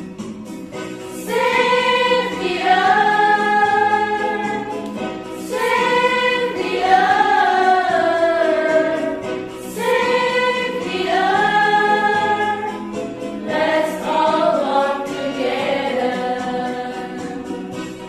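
Music: a choir singing slow, long held phrases over a soft backing, four phrases beginning about four seconds apart.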